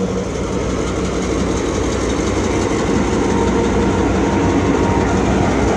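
Stone Mountain Railroad diesel locomotive 6143 passing close by, its engine running steadily along with the noise of the train rolling, growing a little louder about halfway through.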